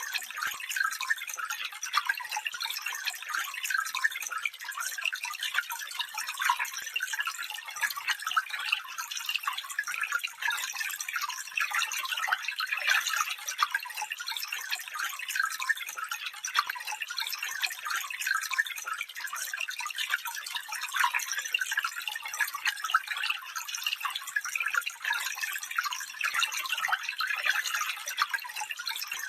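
Stream water running and trickling steadily over stones, a continuous high splashing babble with no low rumble.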